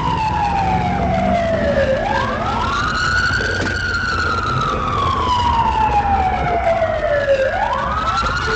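Police car siren on a slow wail: the tone falls slowly for about five seconds, then sweeps quickly back up, about two seconds in and again near the end, over the patrol car's engine and road noise.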